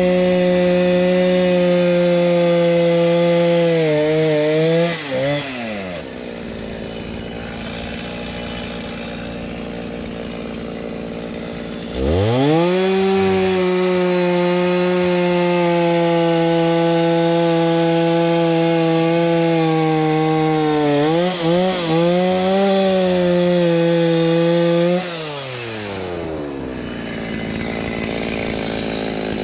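Two-stroke chainsaw running at full throttle while cutting seasoned oak firewood. It drops back to idle about five seconds in, revs up sharply again about twelve seconds in for another cut, and the revs waver before it falls back to idle about twenty-five seconds in.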